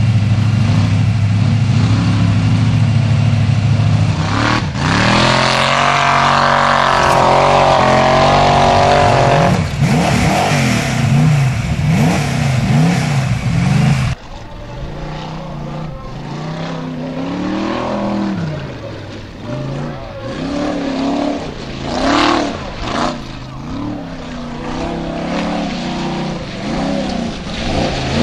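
Engine of a Jeep-bodied Formula Offroad car running steadily, then revving hard with its pitch climbing and falling as it works up a loose gravel slope. About halfway through the sound drops suddenly and goes on as shorter bursts of revving.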